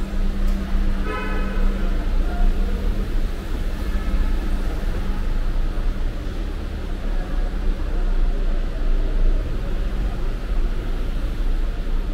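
Steady low rumble of road traffic and running vehicle engines, with a short vehicle horn toot about a second in.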